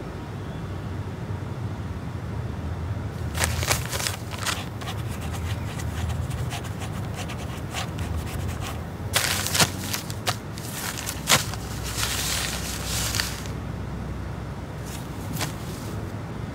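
Sheets of paper rustling as the pages of a contract are handled, and a ballpoint pen scratching a signature onto paper, in irregular bursts with a few sharp clicks; the longest rustles come about nine and twelve seconds in.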